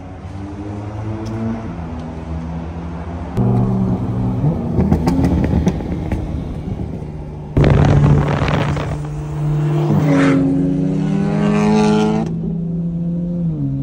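Car engines accelerating hard at highway speed, the pitch climbing in long pulls, with a loud rush of wind and exhaust noise partway through. Near the end the revs climb steeply, then drop sharply and settle into a steady drone.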